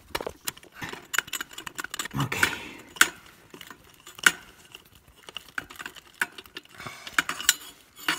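Metal hand tools clinking and tapping as an exhaust header is bolted onto a motorcycle's cylinder head: a socket on the flange nuts and metal parts knocking together in irregular sharp clicks.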